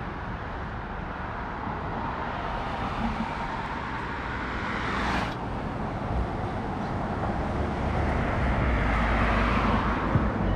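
Cars passing close by on a paved road, their tyre and engine noise swelling and fading. One goes by about halfway through, and another approaches near the end.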